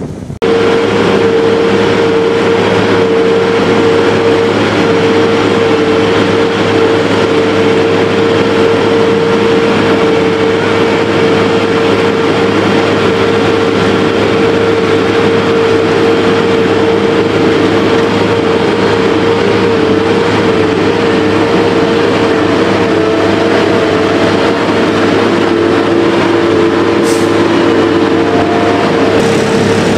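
Heavy road-construction machine's diesel engine running steadily under load, with a strong, even whine over a low rumble. It starts suddenly about half a second in.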